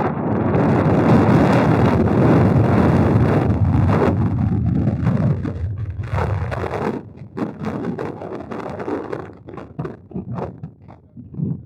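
Wind buffeting the microphone, a loud low rumble that eases and breaks up into gusts over the last few seconds.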